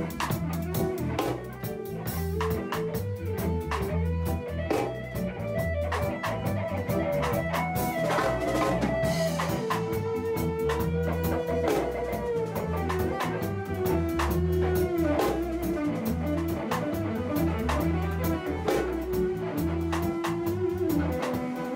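A band playing an instrumental: drum kit and bass keeping a steady beat under a lead guitar melody with bent, sliding notes.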